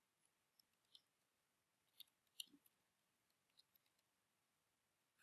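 Faint computer keyboard typing: soft key clicks, scattered in small groups with short pauses between.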